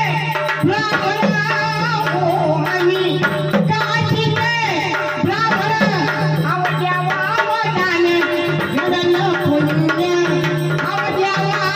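Marathi gavlan folk song: a woman singing over tabla-style hand drums and a steady low drone, the drums' bass strokes bending in pitch now and then.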